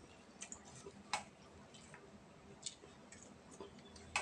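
Spoon and fork clicking lightly against plates and a bowl during a meal: a handful of faint, irregular clinks, the clearest about a second in.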